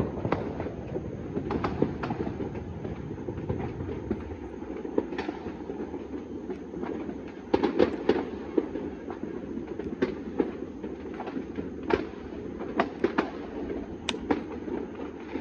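Many distant fireworks and firecrackers going off at once across a city, blending into a continuous crackling rumble. Sharp single bangs stand out irregularly, several close together about eight seconds in and again in the last few seconds.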